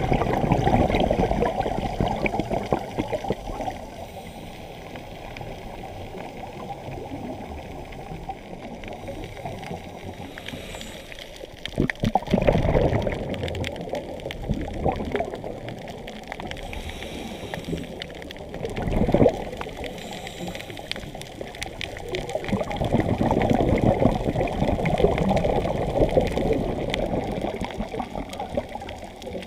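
Underwater sound heard through a camera housing on a night scuba dive: a muffled, steady rush of water, with louder gurgling surges of diver's regulator bubbles about twelve, nineteen and twenty-four seconds in.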